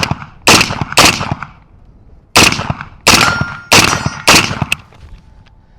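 A string of loud rifle shots from an unsuppressed 5.56 rifle with only a muzzle brake, about six, spaced half a second to a second and a half apart. A steel target rings briefly after one of the middle shots.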